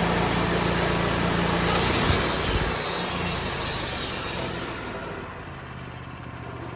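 Sawmill running a cut: the engine runs steadily under load with a loud hissing whine from the blade in the wood, a couple of low thumps about two seconds in. About five seconds in the cutting hiss fades and the engine settles lower as the blade comes out of the cut.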